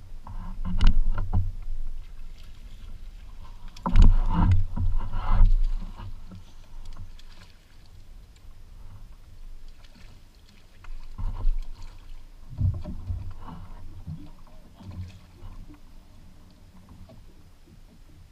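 Irregular knocks and low thumps on a Hells Bay flats skiff, with water sounds at the hull, in bursts about a second in, around four to five seconds in and again around eleven to thirteen seconds in, as a hooked snook is fought on a fly rod and brought alongside.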